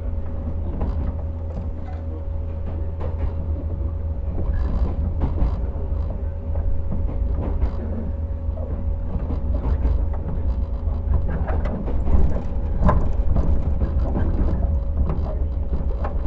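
JR 115 series electric train running on the rails, heard from inside the MoHa 114 motor car: a steady low rumble with a constant hum and scattered short clicks from the wheels and rail joints.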